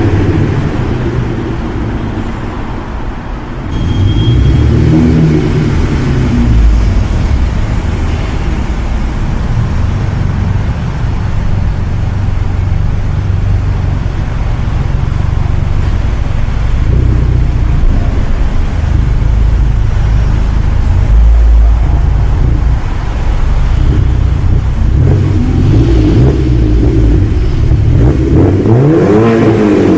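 BMW 120i's 2-litre four-cylinder engine running through a custom quad exhaust with the rear silencer (backbox) deleted, a deep, loud rumble as the car drives in the car park. The engine note climbs and drops back a few seconds in, and revs up and falls again near the end as the car comes past.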